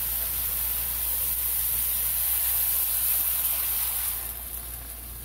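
Pork and vegetables sizzling in a hot pot, a steady frying hiss. About four seconds in, water is poured into the pot and the hiss drops and turns quieter.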